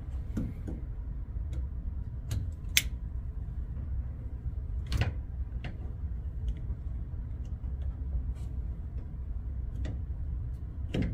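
Scattered small clicks and taps as a metal retainer clip is worked onto a Moen 1222 shower valve cartridge by hand, the sharpest click about three seconds in, over a steady low hum.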